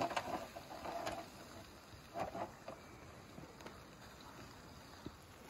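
Kebab meat in a grill basket sizzling over hot charcoal, with fat crackling on the coals. The crackles come thickest in the first second and again around two seconds in.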